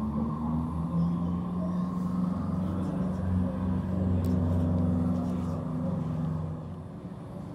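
A low, steady engine rumble with a hum running through it, swelling about four to five seconds in and easing off near the end.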